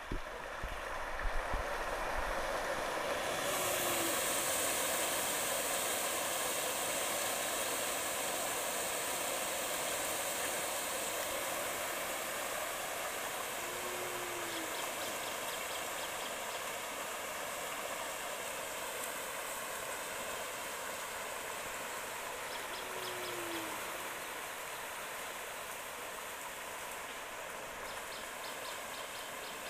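Steady rushing and churning of water as a dense shoal of feeding pangasius catfish splashes and thrashes at the pond surface. It is loudest a few seconds in and eases slowly. A short low hoot sounds three times, about ten seconds apart.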